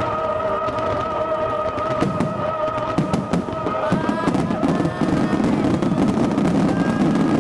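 Fireworks going off in a dense run of bangs and crackles over a steady low rumble. Music plays under them, with a long wavering held note that ends about four seconds in, followed by short rising tones.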